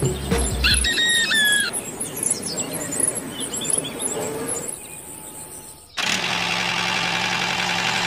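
Birds chirping with a short high squeal about a second in; about six seconds in, the steady whir of a small electric motor on a homemade toy machine starts abruptly.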